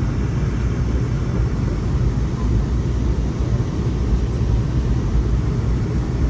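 Airliner cabin noise in flight: a steady low rumble of engines and airflow heard from a window seat.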